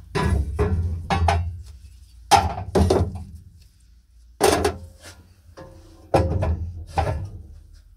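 Wooden blocks and the ship lamp's metal parts set down and shifted on the perforated steel grate of a sandblasting cabinet. A series of separate knocks and clanks, about eight, each ringing briefly.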